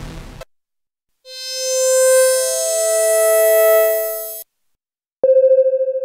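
Behringer Vintage software synthesizer presets being auditioned: a busy patch is cut off, then a held chord swells in, one note first with others joining, and stops. About five seconds in a new patch starts with a click: a single tone that pulses quickly in loudness.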